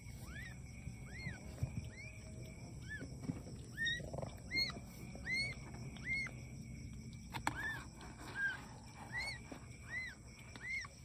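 Newborn kittens mewing: a steady run of short, high-pitched squeaky mews, each rising and falling in pitch, a little more than one a second. A single sharp tap sounds about seven and a half seconds in.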